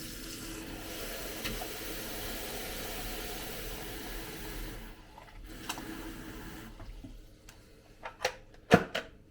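Cold water running from a tap into a Makita DKT360Z cordless kettle: a steady stream for about five seconds, then a shorter second run. A few clicks and knocks follow near the end, the loudest just before it closes.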